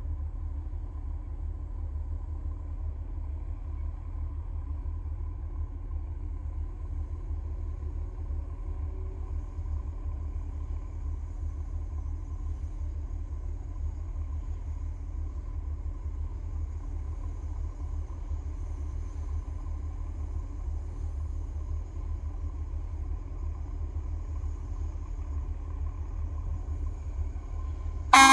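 MMTR-TGIV-02 rail inspection vehicle approaching slowly with a steady low rumble and a faint engine hum. Its horn sounds loudly just before the end.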